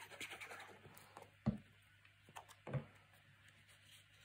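Paper craft handling while a paper strip is glued: a light rustle of paper, then two dull thumps a little over a second apart, the first the louder.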